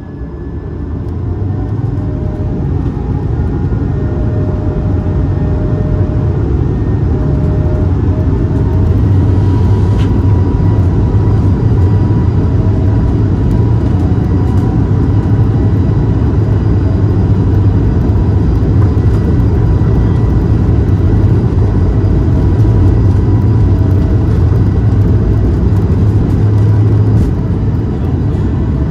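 Airbus A220-300 cabin during the takeoff roll: the Pratt & Whitney PW1500G geared turbofans spool up over the first couple of seconds into a loud, steady low rumble, which eases slightly near the end.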